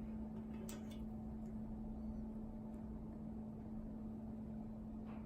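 Quiet room tone: a steady low hum with a few faint light clicks about a second in.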